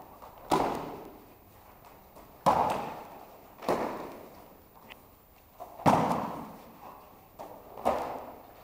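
Aikido students taking breakfalls: bodies landing on foam mats in a series of thuds and slaps, about five of them roughly every second and a half to two seconds, each dying away with a short echo.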